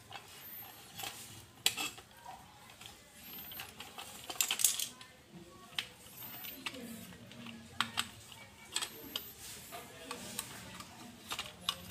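Light clicks and knocks of a battery-powered plastic toy horse being handled and turned over, with a quick cluster of clicks about four and a half seconds in.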